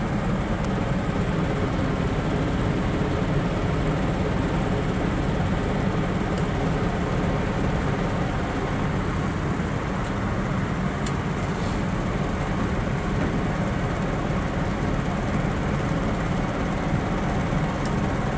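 Furnace blower motor running steadily on fan-only, a dense low hum with air rush. The motor in this 1980s furnace is still shaking on its mount. A few faint light ticks sound over it.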